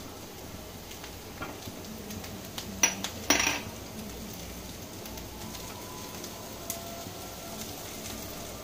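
A spoon clinking and scraping against a kadai while stirring sautéing greens. A few sharp knocks stand out, the loudest about three seconds in, over a faint steady frying hiss.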